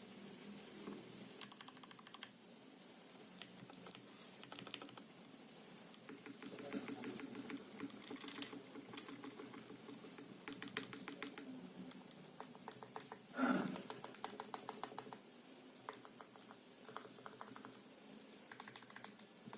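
Tecware Phantom L low-profile mechanical keyboard with Outemu Red linear switches, lubed with Krytox 205g0, being typed on in quick runs of keystrokes with short pauses between them. There is one louder, deeper knock about two-thirds of the way through. It is picked up by a phone's built-in microphone.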